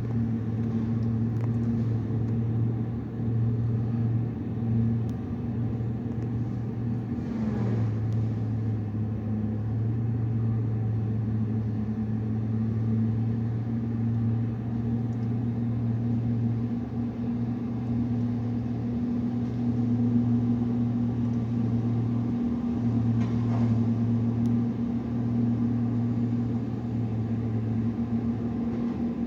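Engine of a tree-cutting land-clearing machine running steadily at a constant pitch, with two brief noisy swells, one about a quarter of the way in and another about four-fifths of the way in.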